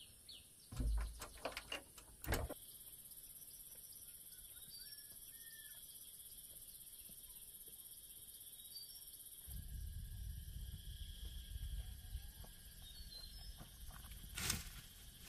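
Faint outdoor ambience with a few faint bird chirps. A run of clicks and knocks comes in the first couple of seconds, a low rumble starts about two-thirds of the way through, and a sharp knock comes near the end.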